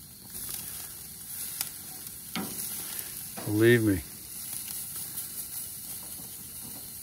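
Filet mignon steaks sizzling steadily on a hot gas grill's grates, with a couple of light clicks from metal tongs handling them about a second and a half in.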